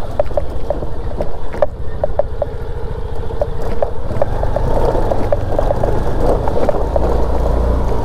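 Motorcycle engine running steadily as the bike is ridden, a low rumble with a run of short, sharp ticks over it. A faint higher engine tone comes in about four seconds in.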